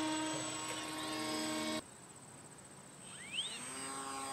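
Electric motor and propeller of a radio-controlled model plane flying overhead: a steady buzzing whine that cuts off suddenly a little under two seconds in. After a quieter gap, a motor's whine rises in pitch about three seconds in and then holds steady.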